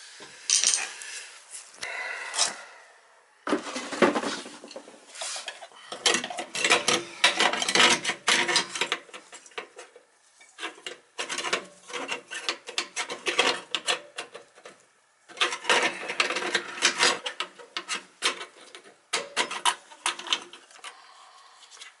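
Metal parts clinking, rattling and scraping as an oil burner's nozzle and electrode assembly is handled and fitted back into the Beckett burner, in irregular bursts with short pauses.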